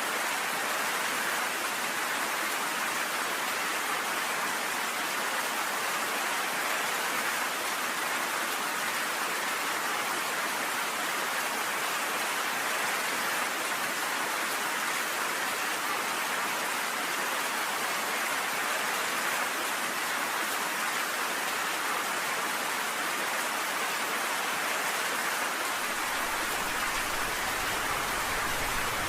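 Steady rain pelting down on a cabin porch, an even, unbroken hiss.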